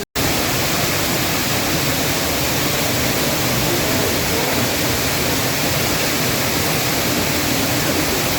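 Waterfall, a steady rushing roar of falling water, with a split-second dropout just after the start.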